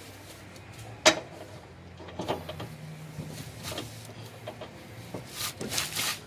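Hand tools working on the lower engine mount's bolts: irregular sharp metallic clicks and knocks, one loud click about a second in and a quicker run of them near the end, as the bolts are loosened.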